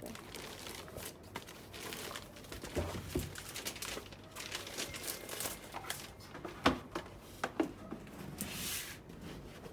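Plastic bag crinkling and rustling as it is handled, with irregular crackles and a few sharper clicks.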